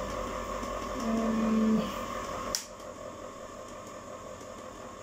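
Electric ice cream maker (gelatiera) running with a steady hum and whine, then stopping with a click about two and a half seconds in.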